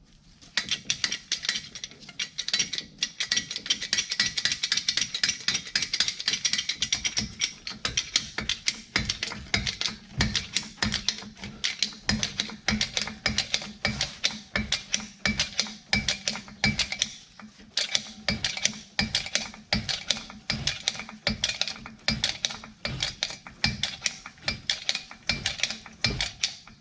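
Vehicle jack being worked to lift the van's front wheel off the ground: a steady run of sharp mechanical clicks, a few a second.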